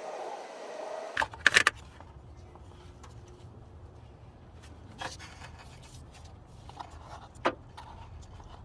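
Work under a car during an oil change: a steady rushing noise cuts off about a second in, followed by a quick cluster of metal clanks. After that comes a low hum with a few single clicks of tools and parts being handled.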